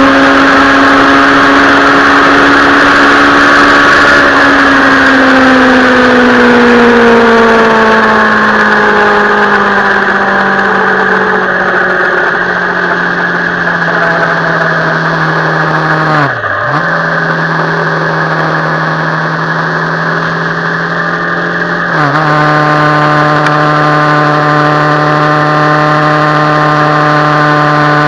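Suzuki Bandit 650N motorcycle engine running steadily, its pitch falling slowly and then holding. It dips sharply and recovers once about halfway through, and near the end it steps a little lower in pitch and runs louder.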